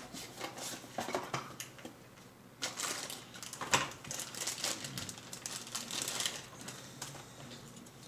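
Packaging and small items being handled during unboxing: irregular clicks, taps and rustling of plastic and cardboard, with one sharper click about four seconds in.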